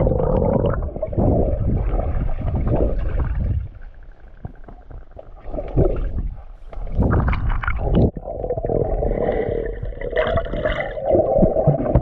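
Pool water sloshing and gurgling, heard muffled and rumbling, with a quieter dip about four seconds in and separate sudden splashes after it.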